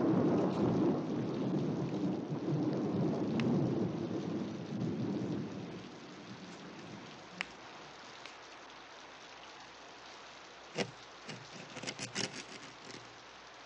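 Thunder rumbling and dying away over the first several seconds, over steady rain. A few sharp clicks come near the end.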